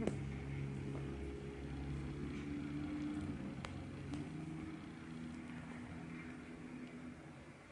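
Cat purring: a low, steady rumble that slowly fades, with a couple of faint clicks.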